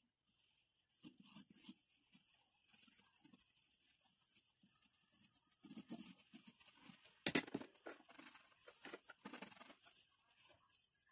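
Short, irregular scratchy strokes of a graphite pencil and a paper blending stump rubbing over drawing paper, with one sharp knock a little past seven seconds in.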